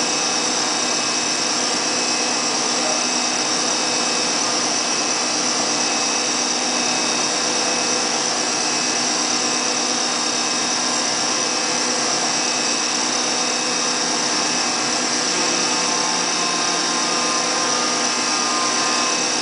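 High-speed CNC milling machine cutting an aluminium part: a steady high whine made of several fixed tones over an even rush of noise, with no pauses.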